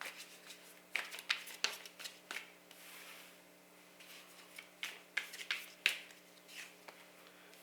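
Tarot cards being handled: drawn from the deck and laid out, giving a series of sharp card snaps and taps with a brief swish near the middle.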